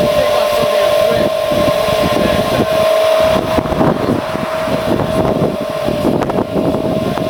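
Steady high whine of the electric draft blower on a pickup-mounted wood gasifier, running without a break during start-up, over an irregular low rumble.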